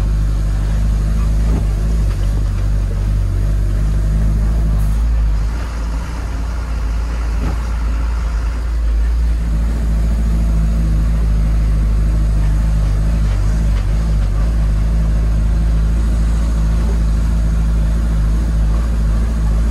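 Engine and road noise of a utility vehicle heard from inside its cab while driving: a steady low engine drone. The engine note dips and shifts about six seconds in, then settles back into a steady hum after about nine seconds.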